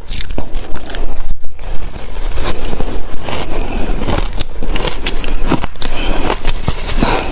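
Close-miked biting and crunching of shaved ice: dense, loud crackling with sharp crunches, broken by a short pause about a second and a half in.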